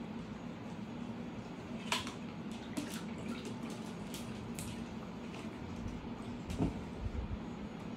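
German shepherd lapping water from the bowl of a gravity-fed pet water dispenser: a run of quick wet laps starting about two seconds in, then a last lap with a soft thump near the end, over a faint steady low hum.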